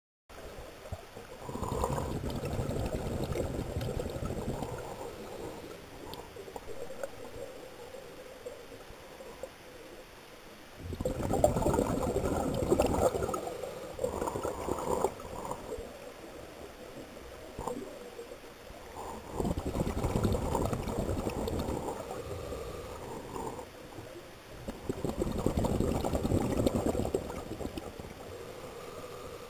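Underwater scuba breathing: a diver's exhaled air bubbling out of the regulator in four gurgling surges, about every six to seven seconds, with quieter breathing between them.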